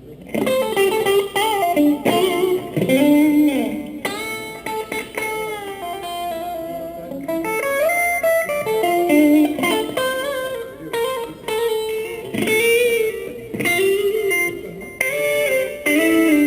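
Electric guitar playing melodic lead licks, single notes that slide and bend in pitch, starting just after the beginning.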